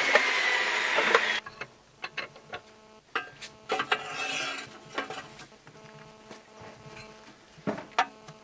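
A loud rushing noise cuts off about a second and a half in. After it, a wrench on a long pipe extension clicks and clanks in short irregular bursts as it works a rear-wheel nut of a UTB 650 tractor, over a faint steady hum.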